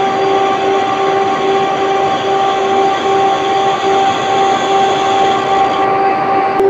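Workshop machinery running: a loud, steady mechanical drone with a constant mid-pitched hum and a fainter higher overtone.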